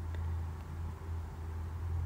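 Steady low background hum with faint hiss, without speech.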